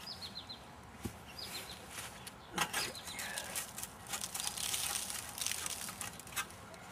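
Thin sheet metal being ripped and worked by hand at the top of a metal lamp post: a few sharp clicks and snaps, and a high scraping hiss a few seconds in. Birds chirp in quick runs of short falling notes near the start.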